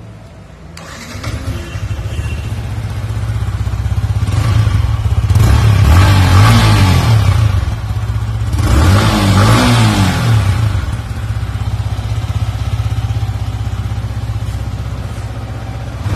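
Yamaha R15M's 155 cc single-cylinder engine on its stock exhaust, idling and then revved twice, the pitch rising and falling each time, before settling back to idle.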